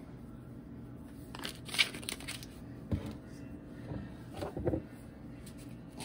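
Garlic seasoning being added to ground burger meat: a quick series of short shaking or rattling noises from a seasoning container about a second and a half in, loudest near two seconds, then a single knock and a few duller handling noises.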